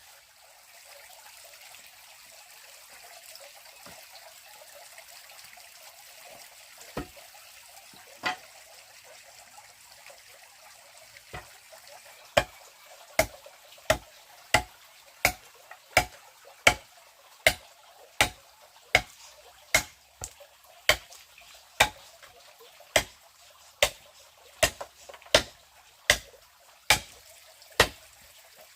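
Steady trickle of running water. About halfway through, a regular run of sharp blows begins, about one every three-quarters of a second: a tool striking repeatedly, as in chopping or hammering.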